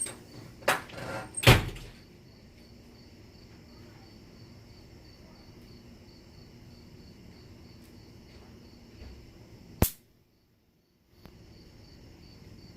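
Two knocks in the first two seconds, the second the loudest, like a door or cupboard being shut. Then crickets chirp steadily and faintly in the background. A sharp click near the end is followed by about a second of dead silence before the chirping returns.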